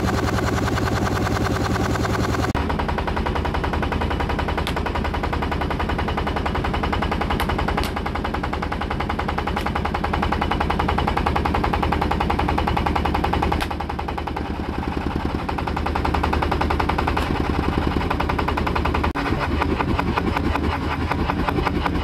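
Road roller's engine running up close with a fast, even chugging beat, with a few faint clicks here and there.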